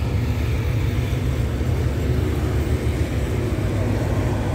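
Steady low rumble of a diesel train engine running, even throughout with no distinct strokes.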